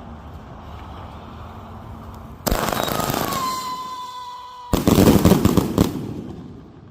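Modified consumer fireworks cake firing: a sudden burst about two and a half seconds in, with a whistle that drops slightly in pitch, then a second, louder volley of rapid crackling bangs about two seconds later that fades out.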